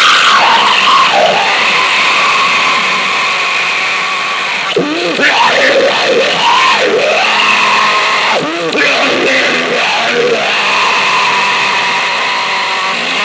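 Harsh noise music: a dense, loud wall of hiss with warbling, swooping pitch glides sweeping up and down through it.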